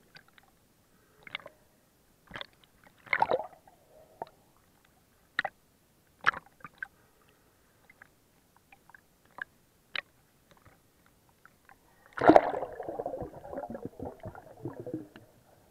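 Sea water heard underwater around a snorkeler: scattered short clicks and pops, then about twelve seconds in a longer, louder stretch of bubbling and sloshing.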